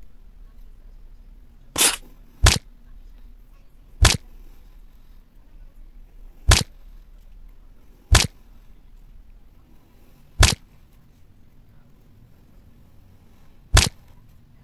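Kinetic sand being cut: seven short, crisp cuts at uneven intervals, each a sharp click as the blade goes through the sand and meets the surface beneath.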